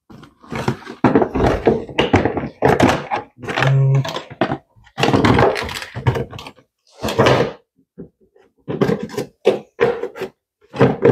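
Hard plastic battery tray being knocked and worked into place in a car's engine bay: a run of irregular knocks, clunks and scrapes.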